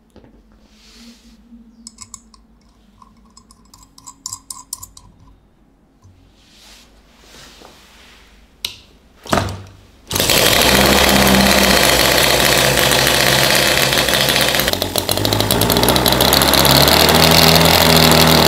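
Miniature gasoline model engine being hand-started: faint clicks and handling at first, two sharp pops just before it catches, then about ten seconds in it fires up and runs loudly and steadily, easing briefly around the fifteen-second mark before picking up again.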